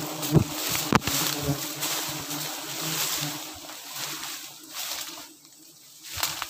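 Wild bees buzzing around their smoked nest, a steady hum over rustling and wind on the microphone, with a couple of knocks in the first second; the buzzing fades after about four seconds.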